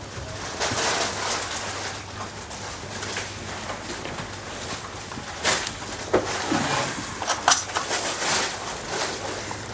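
Rustling and handling of cloth prayer mats, with a few sharper knocks in the second half, over a low steady hum.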